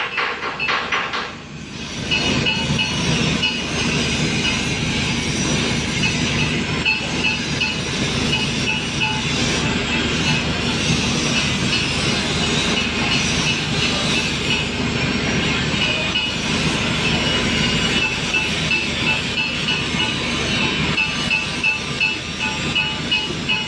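Handheld angle grinder grinding the weld on a 24-inch steel pipe joint: a steady grinding noise with a high whine that comes and goes as the disc bites, starting about two seconds in after a few sharp knocks.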